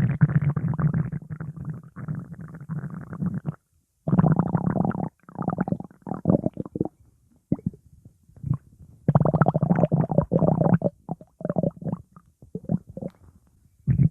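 Stomach growling: long gurgling rumbles broken by brief pauses, with runs of short, choppy gurgles in between.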